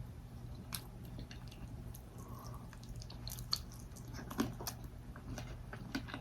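A person chewing and smacking food, close to the microphone: irregular soft wet clicks at an uneven pace.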